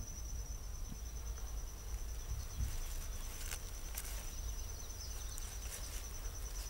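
An insect's high, steady trill, pulsing very fast, with a few faint clicks over it.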